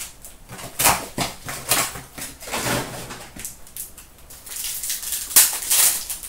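Cardboard hobby box and foil trading-card packs being handled, with irregular rustling and crinkling of the wrappers. The loudest crackle comes near the end as a foil pack is torn open.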